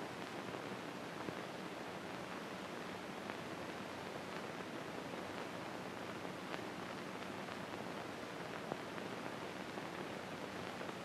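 Steady hiss with a few faint scattered clicks and crackles: surface noise of an early sound film's optical soundtrack, with no dialogue or music.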